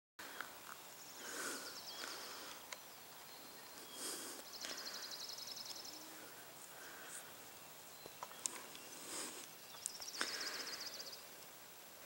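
Small birds singing in the background: a rapid, high trill about a second long, heard three times, between short chirps, with a few faint clicks.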